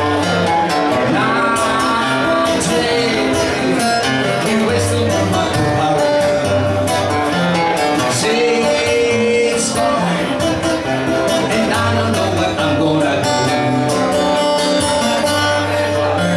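Acoustic guitar played solo and live, a repeating bass-note pattern under melody lines and picked chords.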